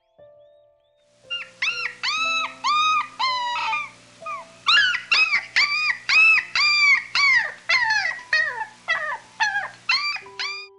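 An animal giving a rapid series of short, high calls, each rising then falling in pitch. They come in two runs with a brief break near the middle, over soft piano music.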